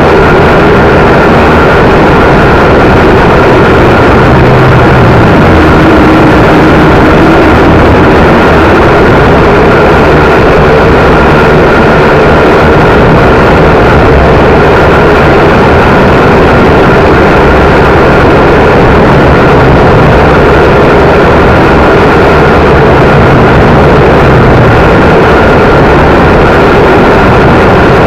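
WLtoys V959 quadcopter's small electric motors and propellers running steadily, very loud, with a constant high whine over a rough rushing noise from wind buffeting.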